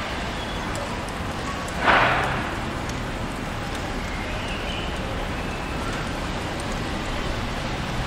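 Steady city street traffic noise, with a sudden loud rush of noise about two seconds in that fades within half a second, and faint brief high tones now and then.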